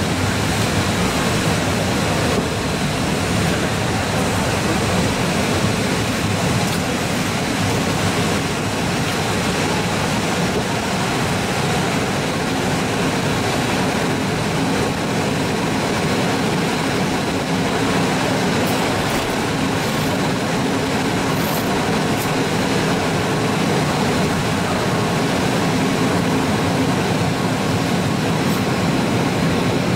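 Passenger train pulling out of a station at low speed: a steady, even running noise from the coaches' wheels and running gear, with no distinct rail-joint clicks.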